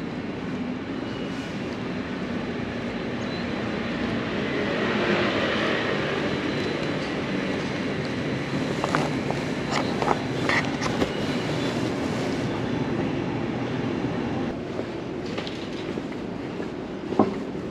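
Passing train: a steady rumble that swells and then eases off, with a few sharp clicks in the middle and a single knock near the end.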